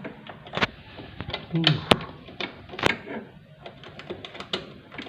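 Irregular clicks and knocks of tools and parts as a top-loading washing machine is taken apart.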